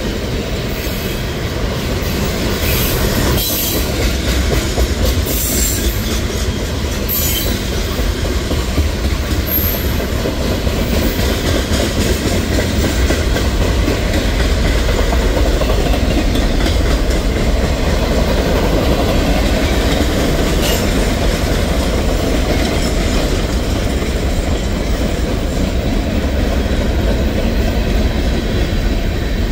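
Freight train cars (tank cars, boxcars and covered hoppers) rolling past: a steady rumble of steel wheels on rail with the rhythmic clickety-clack of the wheel trucks. A few brief, high-pitched wheel squeals come in the first several seconds.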